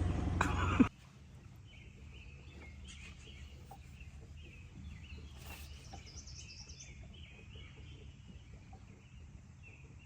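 Songbirds chirping faintly around the lake. Under them a steady low hum, likely the boat's motor, stops sharply about a second in.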